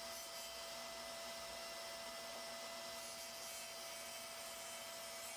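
Faint steady hiss with a thin steady tone: room tone. No table saw cutting is heard.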